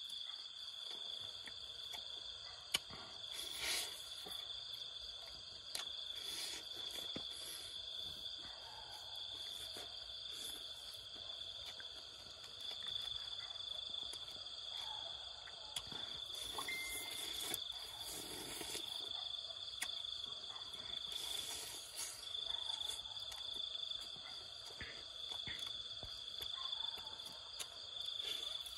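Night insects trilling steadily at one high pitch, with intermittent close-up chewing, tearing and crunching of roasted rat meat and bones.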